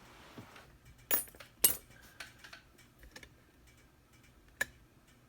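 A few sharp, separate metallic clicks and clinks from handling a Schlage Everest lock cylinder and its picking tools, the loudest pair about a second in, with one more near the end.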